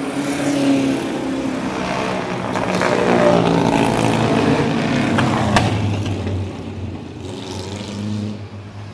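Engines of vintage racing cars, open-wheel single-seaters among them, passing one after another and revving, their pitch rising and falling. A single sharp crack about five and a half seconds in.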